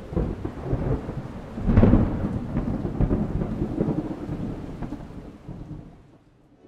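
Thunder from a nearby lightning strike: a rolling rumble that swells to its loudest about two seconds in, then dies away over the next few seconds, with rain in the background.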